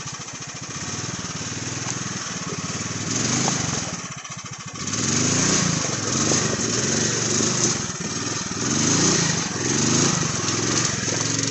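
Single-cylinder 420cc Power Fist engine in a Polaris Sportsman ATV, working under load as the quad climbs over rocks. It runs steadily at first, then from about halfway revs up and down over and over.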